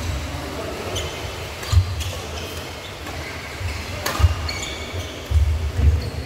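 Badminton rally: several sharp racket strikes on the shuttlecock, with short squeaks and low thuds of players moving on the court, the loudest thuds near the end.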